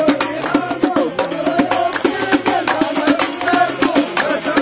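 Moroccan folk music from the Sbouya tradition: a metal naqous struck in a fast, even rhythm under a wavering melody from an 'awwad reed flute.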